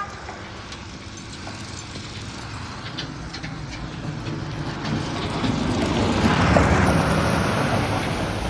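A motor vehicle passing on the street, its engine and tyre noise building to a peak about six and a half seconds in, then easing off.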